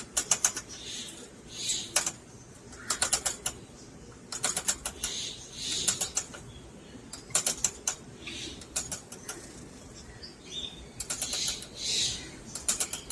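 Lovebirds chirping in short high calls, mixed with short runs of rapid sharp clicks that come about every second or so.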